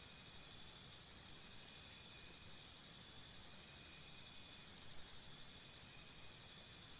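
Faint, steady high-pitched chirring of insects. From about two seconds in until near the end, a louder chirp pulses about three times a second.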